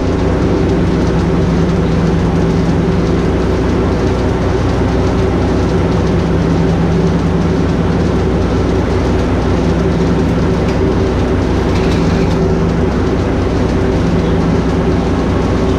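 Milking parlor machinery running: a steady, loud mechanical hum with a constant low drone and no breaks.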